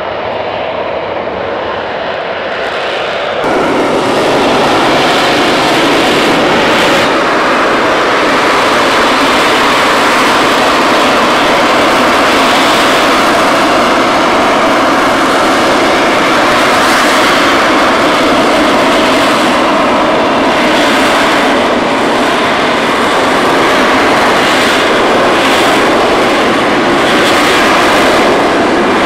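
AV-8B Harrier II jump jet hovering, its Rolls-Royce Pegasus vectored-thrust turbofan giving a loud, steady jet roar. The sound steps up louder and fuller about three and a half seconds in.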